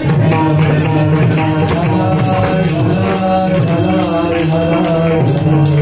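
Kirtan music: voices chanting a devotional refrain with hand cymbals clashing in a steady beat.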